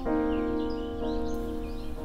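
Background music of sustained keyboard-like chords that change about once a second.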